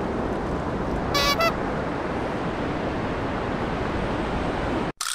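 Steady rushing of a flowing river, with a short high-pitched pulsing sound about a second in. The rush cuts off abruptly near the end.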